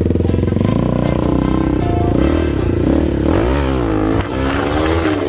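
A motorcycle engine running steadily, with a song carrying a sung melody over it from about two seconds in.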